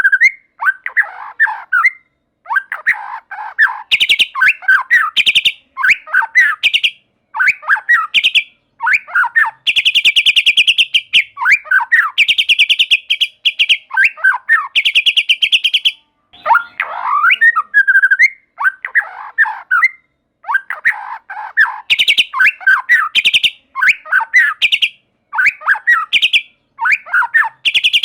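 White-rumped shama singing a long, varied song: whistled and warbled phrases of a second or two broken by short pauses, several of them ending in fast, dry rattling trills of rapidly repeated notes.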